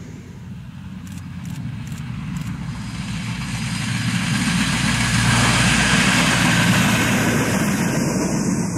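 ALn668 diesel railcar passing: its diesel engine hum and rolling noise grow steadily louder, peak about five to seven seconds in, then begin to fade.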